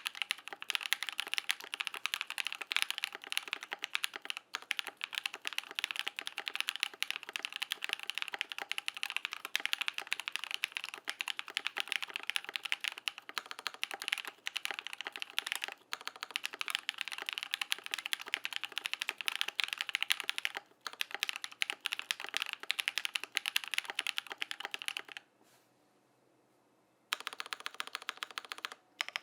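Fast continuous typing on a KBD67 Lite R2 mechanical keyboard with lubed Durock POM linear switches on a polycarbonate plate and PBT keycaps, a dense stream of keystroke clacks. The typing stops for about two seconds near the end, then resumes.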